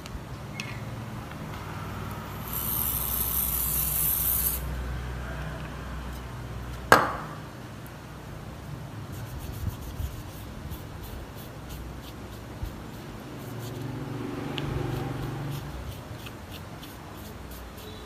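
An aerosol can sprays for about two seconds, a high hiss that starts and stops sharply. A sharp click follows a few seconds later. Then comes light rubbing with small scattered ticks as the phone's keypad is wiped on tissue.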